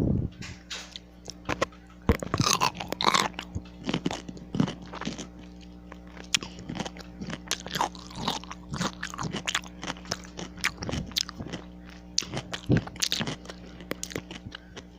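A person chewing and crunching a pickle close to the microphone: wet, crackly crunching bites and chews, with a few louder crunches.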